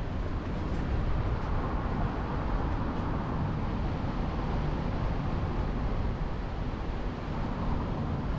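Steady driving noise of a car on the move: tyre and road rumble with wind rushing over the action camera's microphone, even throughout.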